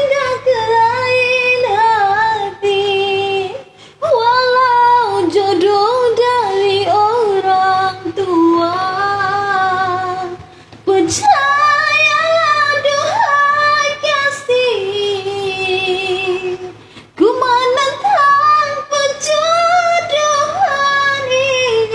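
A girl singing solo in a high voice: long, held, ornamented phrases that bend up and down in pitch, with short breaths about 4, 11 and 17 seconds in.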